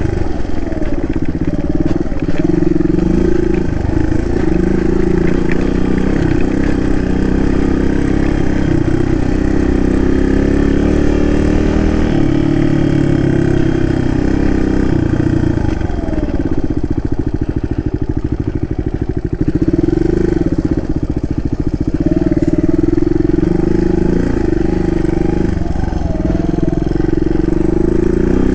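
Suzuki DR200's single-cylinder four-stroke engine running while riding, the revs rising and falling with the throttle. It eases off for a few seconds about two-thirds of the way through, then picks up again.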